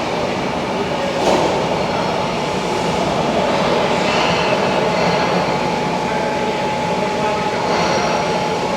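Steady mechanical noise of a machine shop, with a steady whine from running machinery that sets in about a second in.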